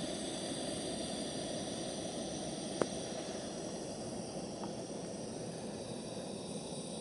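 Steady hissing noise, with one sharp click about three seconds in and a fainter tick a little later.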